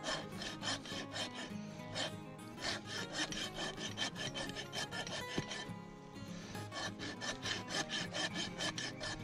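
Steel hoof rasp drawn in quick, repeated strokes across a horse's hoof wall, about three or four strokes a second, with a short pause about six seconds in before the rasping starts again.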